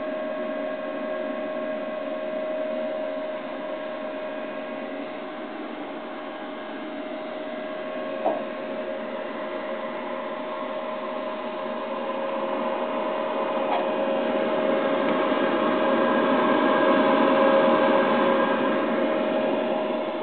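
Agromay S21 rice grain analyzer running: a steady mechanical hum with a constant whine, growing louder in the later seconds. A single short click comes about eight seconds in.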